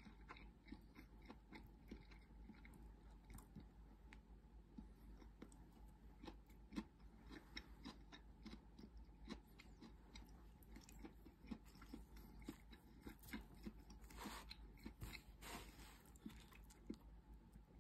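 Faint close-up chewing of clams and rice, with many small scattered clicks of wooden chopsticks against the lunch box.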